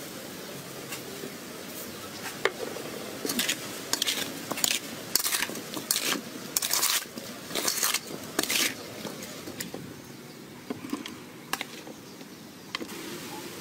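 Sour green fruits being tossed and mixed by hand with salt and chili in a metal bowl: a quick run of short scraping swishes between about three and nine seconds in, with a few light clicks before and after.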